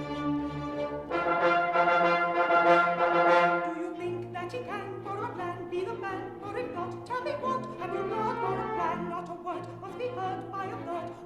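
Comic-opera orchestral interlude with the brass prominent: a held chord for about the first four seconds, then a busier run of short notes over a steady bass.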